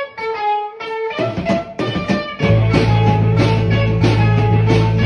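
Music: a repeated picked guitar figure, then a fuller band with drums comes in about a second in, and it gets louder with heavy bass from about two and a half seconds.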